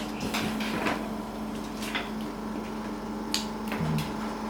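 Steady electrical hum of equipment in a small room, with a few light clicks and taps spread through it.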